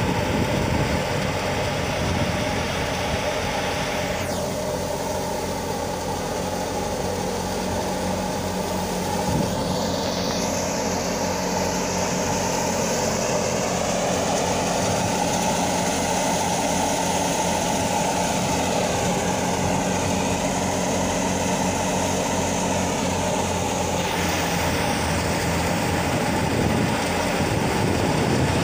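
Wheat thresher running steadily as straw is fed into it, a constant mechanical drone. The higher hiss drops away about four seconds in and returns a few seconds before the end.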